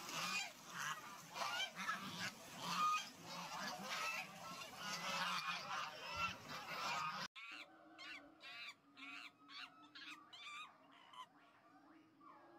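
A flock of domestic geese honking over and over above the rush of flowing water. About seven seconds in this cuts off abruptly, and quieter, short animal calls follow.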